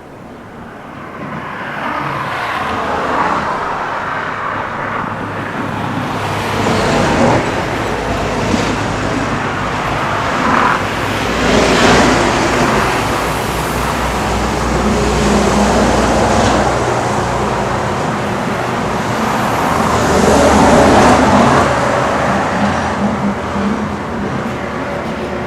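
Road traffic: several motor vehicles pass one after another, with engine and tyre noise. It swells up over the first couple of seconds and a low engine hum runs through the middle.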